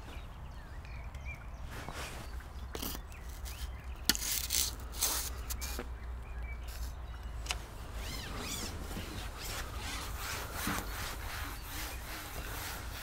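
Rubbing and scraping of a carbon fishing pole being handled and fed out, with a few knocks, over a steady low rumble.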